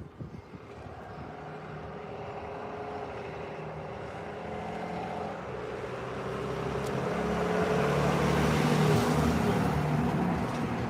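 A motor vehicle's engine running and drawing nearer, growing steadily louder to a peak about nine seconds in, then easing off slightly.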